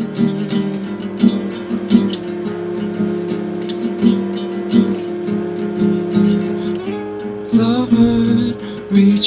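Acoustic guitar playing a steady strummed and plucked accompaniment in an instrumental passage of a song.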